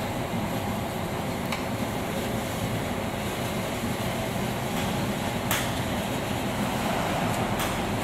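Betts vertical turret lathe with a 108-inch table running, a steady mechanical rumble. Three short sharp clicks come through it: about a second and a half in, around five and a half seconds in, and near the end.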